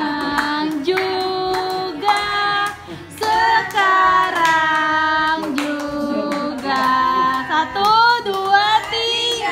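A group of voices, children among them, singing a birthday song together, with hands clapping along.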